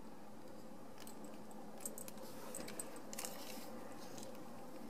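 Faint handling of an opened automatic knife: a few light clicks and rustles, around two seconds and three seconds in.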